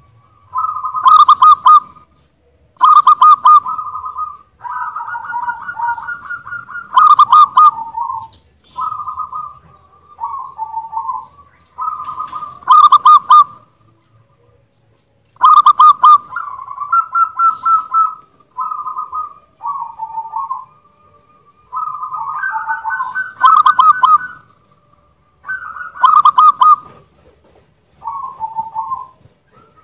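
Zebra dove (perkutut) singing: phrase after phrase of quick staccato coos and rolling, wavering trills, one every second or two with short pauses between. The loudest notes are very loud and sharp.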